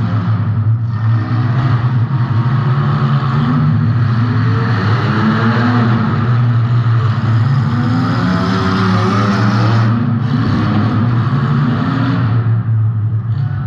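Compact demolition derby car's engine running hard under throttle, its revs rising and falling, with brief lifts off the throttle about a second in and again near ten seconds.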